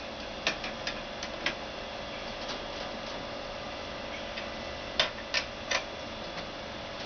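Scattered sharp clicks and light taps, as of tools and metal parts being handled, over a steady machine hum. The loudest cluster of three comes about five seconds in.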